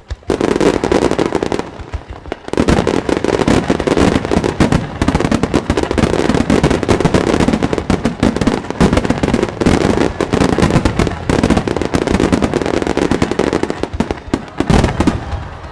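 Starmine fireworks barrage: shells launched and bursting in rapid succession, making a dense, continuous stream of loud bangs and crackles. It starts suddenly, eases briefly about two seconds in, then carries on unbroken.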